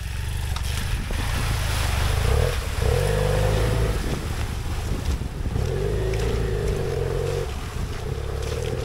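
Motorcycle engine running under load on a sandy dirt track, revving up twice for about two seconds each.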